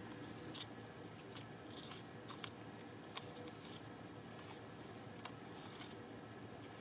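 Faint, scattered light rustles and small ticks of paper being handled.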